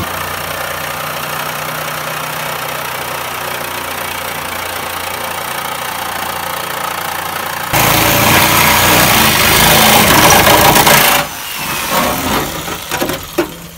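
Handheld power cutting tool running steadily, then growing much louder about eight seconds in as it cuts through the steel lip of a BMW E30's rear wheel arch. The cutting stops suddenly about three seconds later, followed by a few short bursts.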